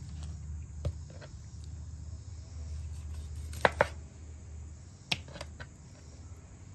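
Chef's knife cutting through raw chicken wing joints and knocking on a bamboo cutting board: a few sharp knocks, the loudest a quick pair about three and a half seconds in, over a steady low rumble.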